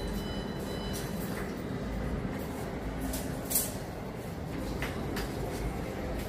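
Steady shop background hum with light rustling from a handheld phone being moved, a few faint short beeps near the start and one sharp click about three and a half seconds in.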